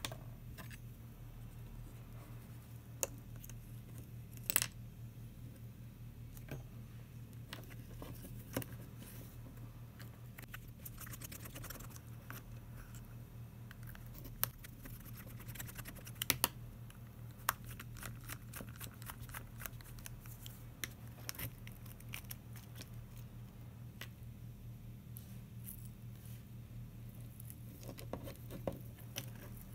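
Scattered sharp clicks and short scrapes of a precision screwdriver and fingers working the small plastic housing of an old webcam as it is unscrewed and pulled apart, with a quick run of ticks a little before the midpoint. A steady low hum sits underneath.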